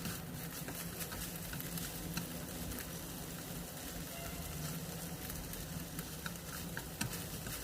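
Pork frying in hot oil in a wok, a steady sizzle with scattered small crackles as the meat browns.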